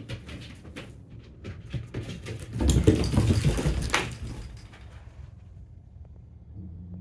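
A puppy's paws pattering and clicking on the floor as it walks, with a louder rustling, thumping burst a little before the middle.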